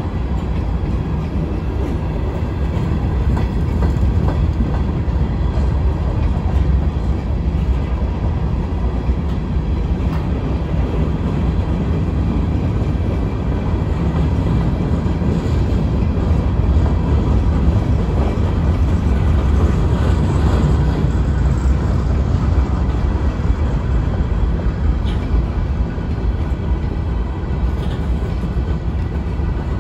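Freight cars of a long mixed freight train rolling past a grade crossing: a steady low rumble of steel wheels on the rails.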